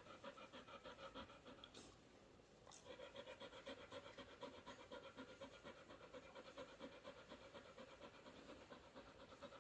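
Rottweiler puppy panting in a quick, steady rhythm, faint, with a short pause about two seconds in.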